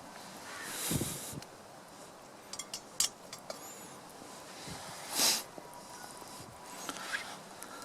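Campfire under a simmering stew pot, a low steady hiss broken by a few sharp crackles. Two short breathy rushes of air stand out, about a second in and again just past the midpoint.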